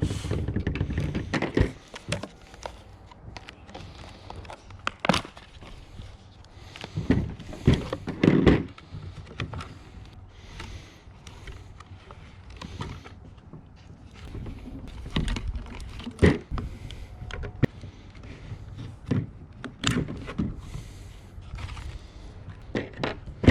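Irregular clicks, taps and knocks of a screwdriver and plastic trim being worked as trim clips on a steering wheel are pressed down and pried loose, with handling noise in between.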